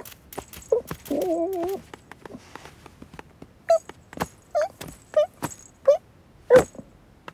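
Cartoon kitten vocal sound effects: a drawn-out wavering cry about a second in, then a string of about five short squeaky mews. Soft clicks and taps run between them as the kitten tussles with a stuffed toy snake.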